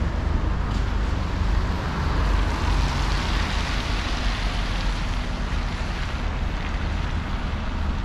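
Road traffic: a vehicle going by, its tyre noise swelling and fading between about two and five seconds in, over a steady low rumble.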